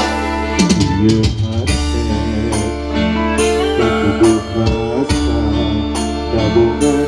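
Live pop Sunda band music: electric guitar and keyboard over kendang drums keeping a steady beat.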